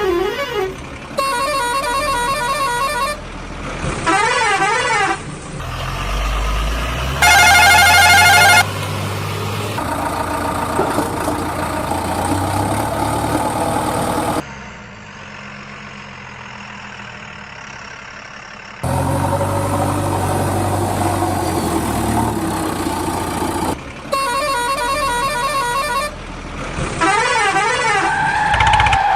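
A run of spliced vehicle sounds: heavy engines running, with rapidly warbling alarm-like tones several times and a loud, steady vehicle horn blast lasting about a second and a half near the middle.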